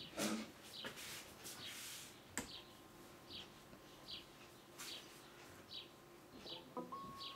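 Faint small birds chirping in short, high, repeated calls. There is a soft knock near the start, and a single sharp click about two and a half seconds in, as the valve amp's power switch is turned on.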